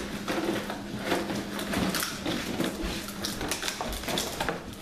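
Empty plastic bottles crinkling and clattering against each other as puppies climb through and chew on them in a plastic tub, in a quick, irregular run of small crackles and knocks.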